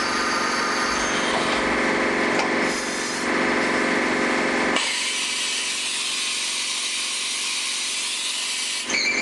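A 1987 Takisawa MAC V2E vertical machining center's spindle turning a cutter as it machines a block held in the vise, a steady whine of several tones over cutting noise. About five seconds in, the lower tones drop out and a higher, hissing cutting noise is left. The fuller sound returns just before the end.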